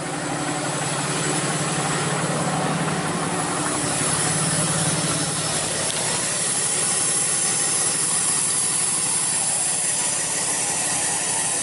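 2010 Ram 2500's 6.7 Cummins turbo-diesel idling in its warm-up "jet mode": the turbocharger is closed down and the exhaust gives a steady, jet-like whoosh and whistle over the diesel idle.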